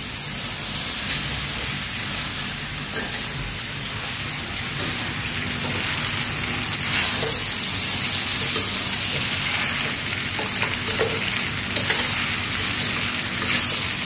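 Spaghetti sizzling in olive oil in a stainless steel pan over a gas flame while it is tossed with metal tongs, a steady hiss with a few sharp clicks of the tongs against the pan.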